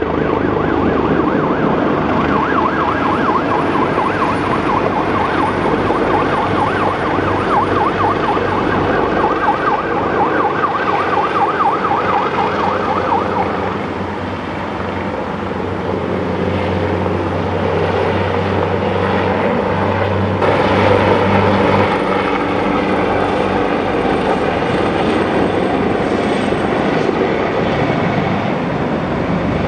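AgustaWestland AW139 twin-engine helicopter flying low overhead: a rapid rotor beat with turbine whine. It eases off briefly about halfway through, then grows louder again as the helicopter comes round.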